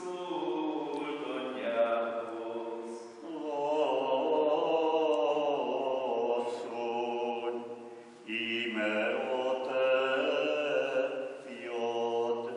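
A mixed choir of men and women chanting from a sung Passion in slow, sustained notes, in three phrases with short breaks about three and eight seconds in.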